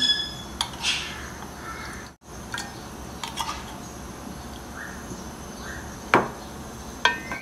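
A metal spoon tapping and scraping against a karahi as chopped garlic is knocked off into water in the pan. There are a few light clinks, one with a short ring at the start, and a sharper knock about six seconds in.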